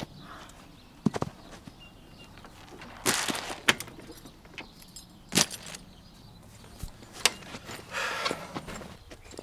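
Metallic rattling and sharp knocks around an aluminium horse trailer as things are moved about: a pair of knocks about a second in, a longer jangling rattle about three seconds in, single clanks later, and another rattle near the end.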